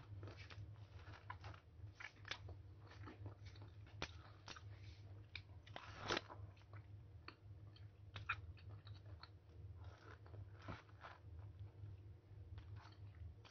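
Close mouth sounds of biting into and chewing a mango slice: faint, irregular clicks and smacks throughout, over a low steady hum.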